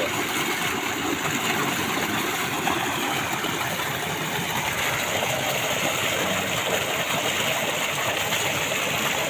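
Steady rush of water pouring from an irrigation pump's outlet pipe and splashing onto the water below, the pump primed and delivering full flow.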